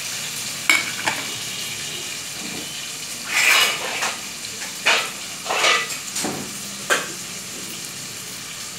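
Chopped onions sizzling in hot oil in an aluminium kadai, a steady hiss. Over it come a few sharp metallic clinks and clatters of utensils, from about a second in to about seven seconds in.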